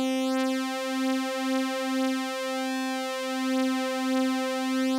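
Waves Codex wavetable synthesizer sounding a single held stacked-saw note, its pitch slowly wavering as an LFO detunes the second oscillator against the first. The level swells and dips gently throughout, and the note stops at the very end.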